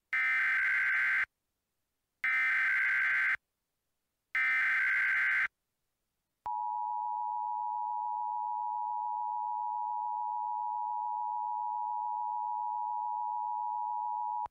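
Emergency Alert System SAME header: three screechy digital data bursts, each about a second long. About six and a half seconds in comes the EAS attention signal, a steady dual tone of two pitches just under 1 kHz sounding together, which signals that an emergency alert is about to be read.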